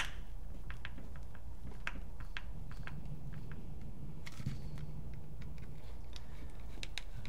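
Scattered light clicks and taps of small plastic parts being handled as a paintball pistol magazine is worked on, with a sharper click right at the start, over a faint steady hum.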